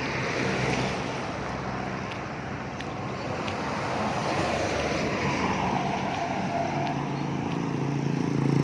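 Road traffic passing on a highway: a steady rush of engines and tyres, with an engine's low hum growing louder near the end as a vehicle approaches.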